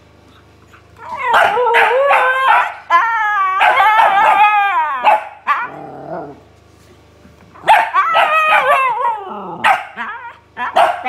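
Siberian husky 'talking': long, wavering, howl-like woo-woo vocalizations in two bouts with a pause between them, and a few short sharp barks near the end.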